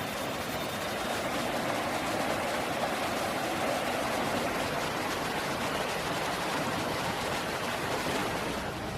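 Creek water running, a steady even noise.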